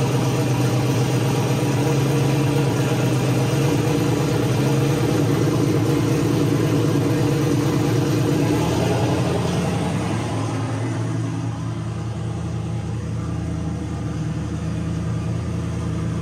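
Turbocharged 5.3 L L33 LS V8 idling on its first start-up, echoing in the garage. About ten seconds in the idle settles a little lower and quieter.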